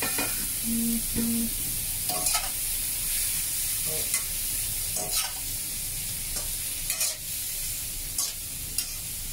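Cauliflower florets sizzling in hot oil in a nonstick frying pan as they are stir-fried with a spatula: a steady hissing sizzle broken by short scrapes and clatters of the spatula against the pan every second or so.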